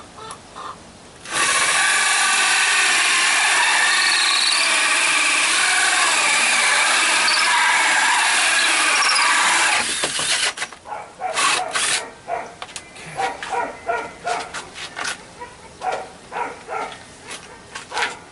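Power drill running continuously for about eight seconds, drilling into wood, then stopping. After it comes a string of short, uneven sounds, a few a second.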